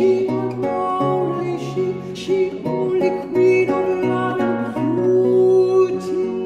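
A countertenor singing a Renaissance lute song, accompanied by a plucked lute; the voice holds long notes, one sustained for over a second in the second half.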